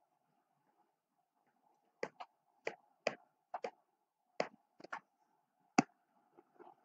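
Stylus tip clicking on a tablet screen during handwriting: about nine sharp taps over the second half, the loudest near the end, over a faint steady hum.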